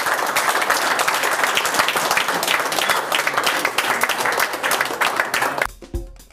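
Audience applauding, a dense patter of many hands clapping. Near the end it cuts off abruptly and drum music begins.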